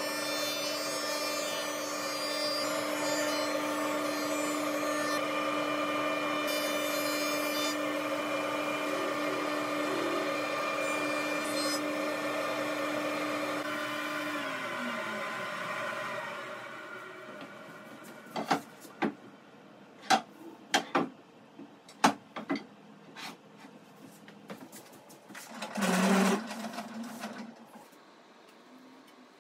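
A combination jointer-planer runs steadily, with a harsher cutting noise near the start and again about seven seconds in as a board is fed across the cutterhead. About fourteen seconds in it is switched off and its pitch falls as it spins down. Then come scattered sharp wooden clicks and knocks, and a short thud about twenty-six seconds in, as thin wood strips are handled on a table saw top.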